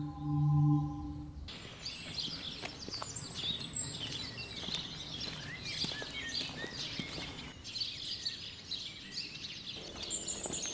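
A low, steady ringing tone stops about a second and a half in. After that a chorus of many birds chirps and sings in woodland.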